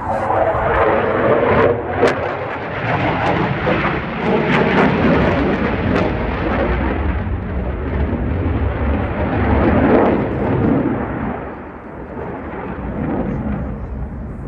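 Loud jet noise from a Dassault Rafale's twin Snecma M88 turbofans as the fighter flies past overhead, with sharp crackles about two and six seconds in and a brief dip in level near the end.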